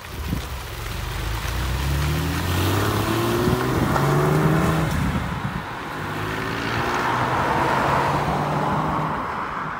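Stock exhaust of a 2006 Porsche 911 Carrera (997.1) and its 3.6-litre flat-six pulling away from a stop, driven gently rather than floored. The engine note rises in pitch, breaks for a gear change about five seconds in, then rises again and fades as the car drives off.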